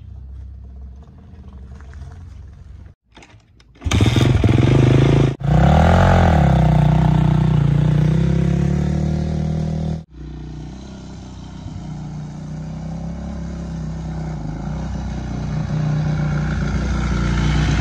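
Honda CRF250X dirt bike's single-cylinder four-stroke engine, bored out to 270, running at a low idle, then much louder as it is revved and ridden, its pitch rising and falling. After a couple of sudden breaks it runs steadily and grows louder toward the end as the bike comes closer.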